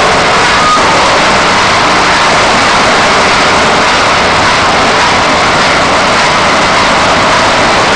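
Organic-waste crusher machine running, a loud, steady mechanical noise with no change.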